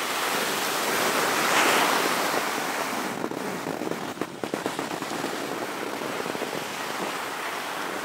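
Skis scraping and sliding over hard-packed groomed snow during a run, mixed with wind rushing past the microphone; from about three seconds in, rapid small clicks and scrapes of the skis over the uneven surface.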